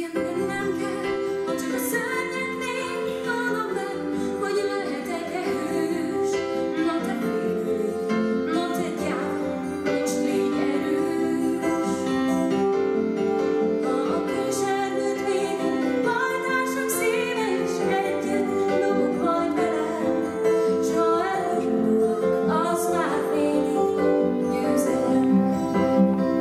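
A woman singing a musical-theatre song over instrumental accompaniment, starting suddenly at full level.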